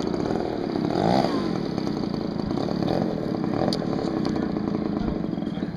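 Radio-controlled model airplane's piston engine buzzing in flight, rising and falling in pitch about a second in.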